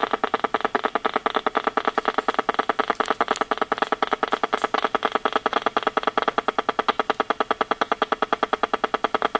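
EMFields Acoustimeter RF meter's speaker giving a steady, rapid buzzing tick, about ten pulses a second. This is the meter rendering the pulsed Wi-Fi microwave signal from the wireless router and iPad as sound, a pulse rate typical of a Wi-Fi router's beacon signal.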